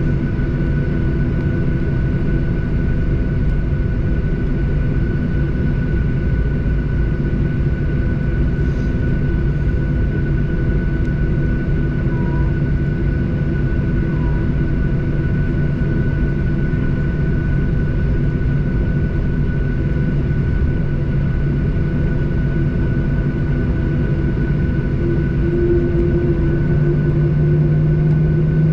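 Cabin noise of a Boeing 737-800 taxiing, heard from a seat over the wing: a steady low rumble from its CFM56-7B engines at low thrust, with a thin steady whine. Near the end the engine tone rises and grows a little louder.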